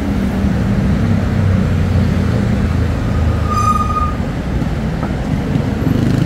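Road traffic: the steady low rumble of passing cars and motorcycles. About halfway through there is a brief high-pitched tone.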